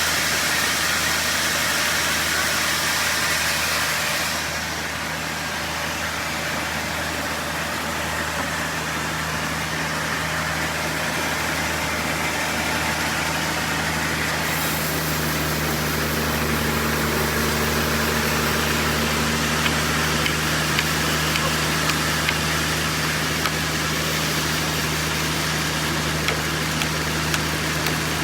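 Sawmill machinery running steadily: an engine drone with a loud hissing sawing noise over it. The hiss eases off about four seconds in and comes back about halfway through, with a few light ticks near the end.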